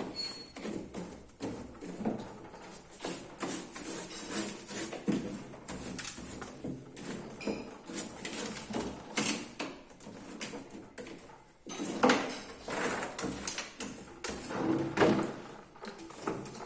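Irregular knocking, clattering and scraping of things being handled in and around a refrigerator as it is defrosted and cleaned, with louder bursts of clatter about twelve and fifteen seconds in.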